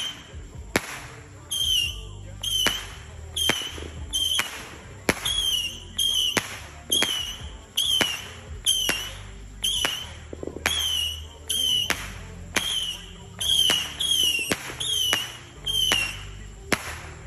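Consumer fireworks cake firing shot after shot at a steady pace, a bit more than one a second. Each shot is a sharp crack followed by a short falling whistle.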